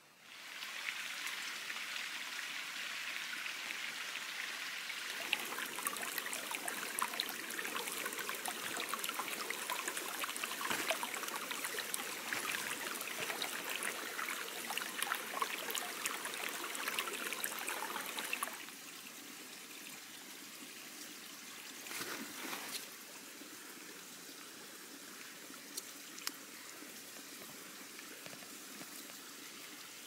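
Running water of a stream, a steady rushing that grows louder and fuller about five seconds in, then drops to a softer trickle a little past the middle. A few faint clicks sound near the end.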